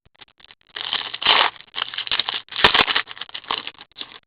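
Trading cards being handled: a run of rustling and scraping as cards slide against one another, with a sharp click about two and a half seconds in.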